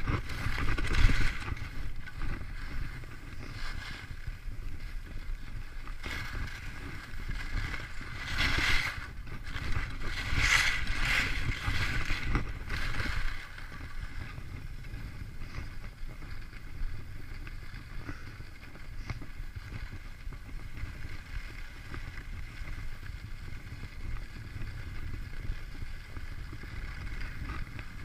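Skis hissing and scraping over snow, with wind rumbling on the microphone. The scraping comes in louder surges near the start and again about eight to thirteen seconds in, then settles into a quieter, steady glide.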